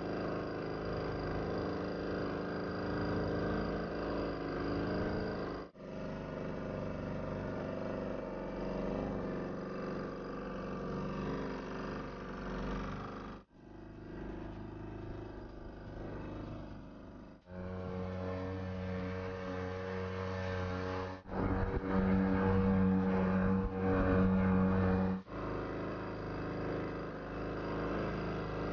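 Small 1.2 hp Sears Gamefisher outboard motor running steadily, pushing a tiny boat along. Its sound jumps abruptly to a new level and tone several times. It is loudest, with a strong steady note, in the stretch just past two-thirds of the way through.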